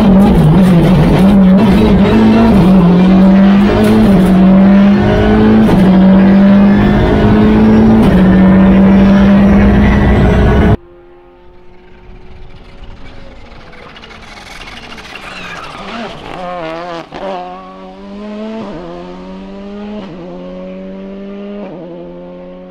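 Loud, steady drone of a car engine heard from inside the cabin at speed, with small dips in pitch, cutting off abruptly about eleven seconds in. Then, quieter, the Volkswagen Polo GTI R5 rally car's turbocharged four-cylinder engine approaches and accelerates hard, its revs climbing and dropping back at each of five or six quick upshifts.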